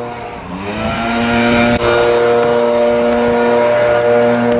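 An engine runs at a steady pitch. About half a second in it revs up, then holds steady again.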